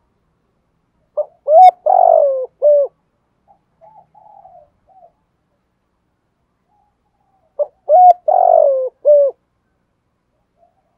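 Male spotted dove cooing its song twice, about six seconds apart. Each phrase is about four notes, with a longer falling coo in the middle, and a few fainter, softer notes follow the first phrase.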